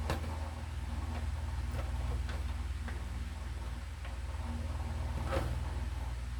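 A few scattered small clicks and taps from handling the vacuum cleaner's wiring and terminals while connecting a wire to the speed controller, the sharpest a little after five seconds in, over a steady low hum.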